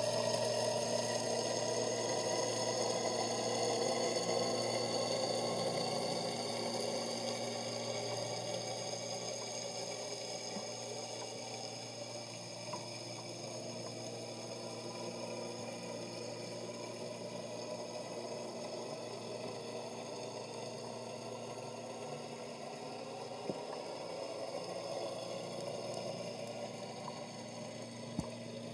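Boat engine and propeller heard underwater: a steady hum of many tones that slowly drop in pitch and fade, as from a boat moving away. A few faint ticks sound in the second half.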